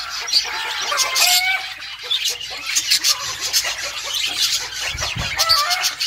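A flock of small parrots, lovebirds among them, chattering in an aviary: a dense, overlapping stream of short shrill chirps and squeaks with a few rising calls. A soft low thud about five seconds in.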